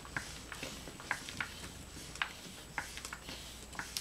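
Small homemade bellows-driven rotary air engine running, fed by a hand-pumped bellows air supply: faint light clicks and taps, irregular and roughly two a second, over a low steady hiss.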